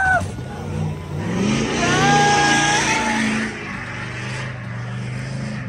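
An off-road truck's engine revving up with a rising pitch, then running on at a steady low pitch under load. About two seconds in, a long shout and cheering from the crowd come over it.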